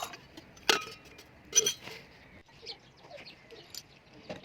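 Two sharp metallic clinks about a second apart, metal pieces knocked together, the first with a short ring, followed by a few faint taps.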